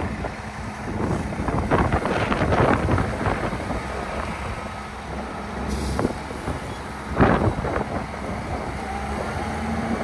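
Tractor engines running steadily while a front-loader bucket tips lime into a spreader hopper, with bursts of rushing, hissing noise as the load pours in, the loudest about seven seconds in.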